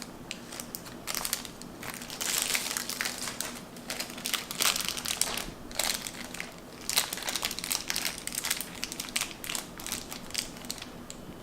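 Crinkling and crumpling of thin plastic wrapping, handled and pulled open in irregular bursts, as L.O.L. Surprise! toy accessories are unwrapped.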